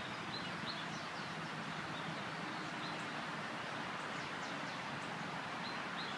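Small songbirds chirping: brief high chirps and quick downward notes scattered through, several a second at times, over a steady background hiss.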